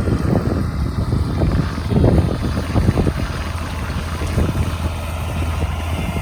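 A vehicle's engine running with a steady low drone, and wind buffeting the microphone in irregular gusts, the strongest about two seconds in.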